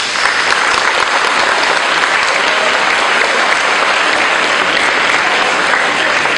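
Audience applauding loudly. The clapping starts suddenly and holds steady.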